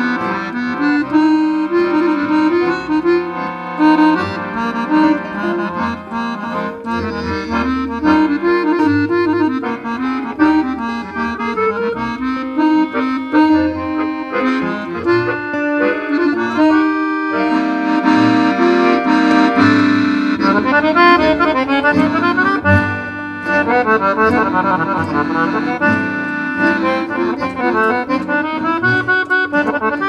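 Piano accordion playing a slow jazz ballad, a melody line over chords, with acoustic guitar strumming along. About two-thirds of the way through it moves into fuller held chords with quick runs of notes.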